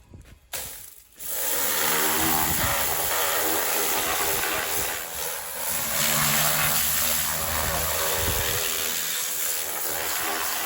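Pressure washer running and spraying: a steady hiss with a motor hum underneath, starting about a second in.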